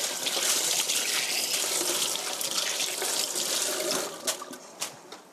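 Kitchen tap running water into a sink for about four seconds, then shut off, followed by a few light clicks.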